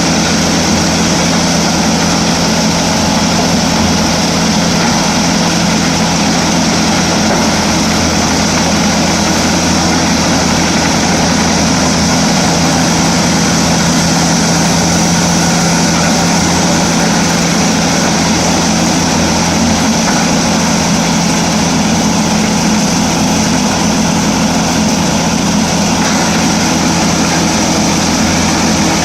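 Pezzolato PTH 900 M drum wood chipper running on its 429 hp IVECO C10ENTX diesel engine: a loud, steady drone with a constant low hum that does not change.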